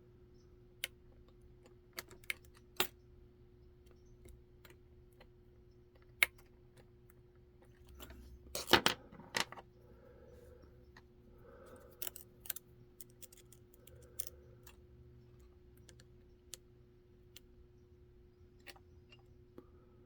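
Sparse, quiet metallic clicks and taps of a lock pick and tension wrench working the pin stack of a Kaba kick cylinder fitted with serrated and spool security pins, with a short run of louder clicks about nine seconds in.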